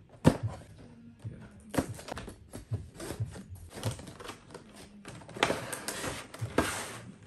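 Cardboard box and plastic packaging being handled and opened: scattered clicks and taps, then rustling and scraping as the plastic tray slides out of the cardboard box near the end. A sharp knock sounds just after the start.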